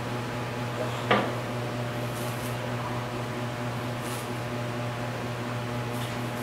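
A steady low hum from a running appliance motor, with one sharp knock about a second in.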